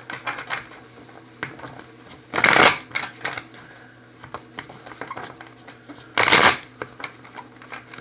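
A deck of tarot cards being shuffled by hand: light card clicks and rustles, with two short loud shuffling bursts about four seconds apart.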